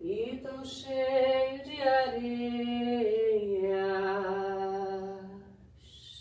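A solo unaccompanied voice singing wordless, long-held notes: it slides up into the first note, then steps down in pitch over two more held notes and fades away. A high hiss starts just before the end.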